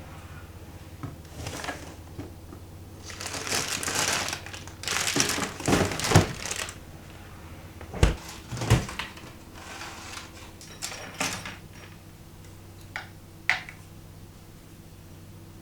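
Household handling sounds: several bouts of rustling, then two sharp knocks and a few light taps and clinks, over a low steady hum.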